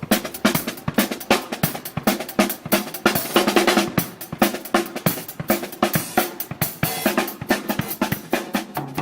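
Drum kit played fast, with a busy, rapid beat on snare and bass drum.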